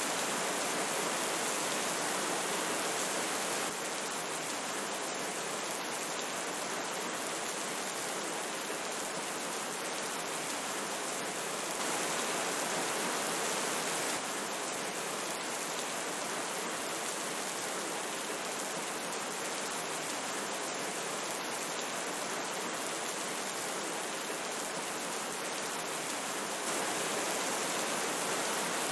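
Steady rush of a flowing river with rain falling, an even wash of water noise with fine pattering up high. The loudness shifts slightly in sudden steps a few times.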